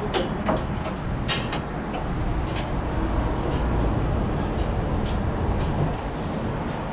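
A few sharp metal clanks as a round deck hatch lid and its chain are handled and swung open, over a steady low rumble.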